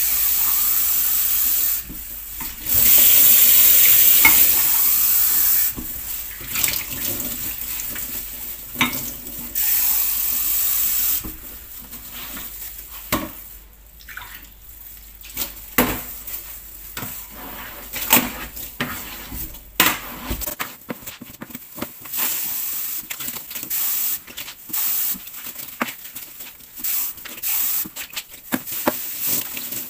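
Washing up at a sink: the tap runs in several spells of a few seconds, and between them dishes and cutlery clink and clatter, more often in the second half.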